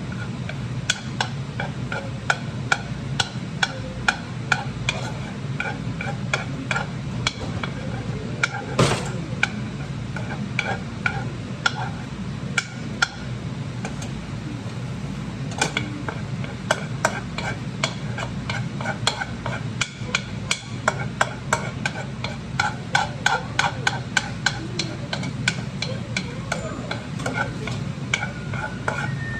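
A utensil stirring and scraping scrambled eggs in a frying pan, with irregular taps and clicks against the pan and one longer, louder scrape about nine seconds in, over light sizzling of butter and the steady hum of a range-hood vent fan.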